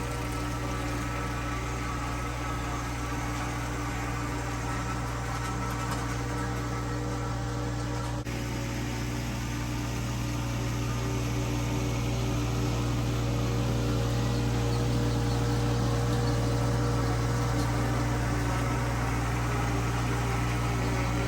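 Four-wheel-drive vehicle's engine running steadily, getting a little louder about halfway through, with one brief click about eight seconds in.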